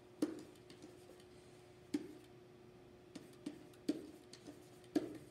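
Pen tapping and clicking against an interactive whiteboard while letters are written: about six sharp taps at irregular intervals, over a faint steady hum.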